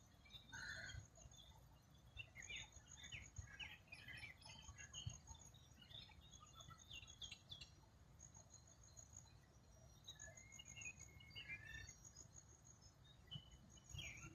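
Faint, scattered chirps and short calls of small birds, several overlapping, busiest in the first half. A rapid, high ticking trill keeps recurring, over a low rumble.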